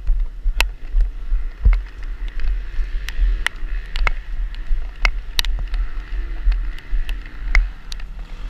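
Enduro dirt bike ridden slowly through deep mud, heard muffled from the rider's helmet: a steady low rumble with scattered sharp clicks and knocks.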